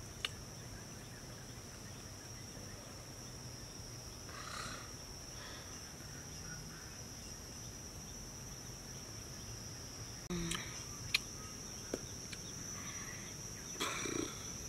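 Insects droning in a steady high-pitched chorus, with a few short clicks and brief rustling sounds in the second half.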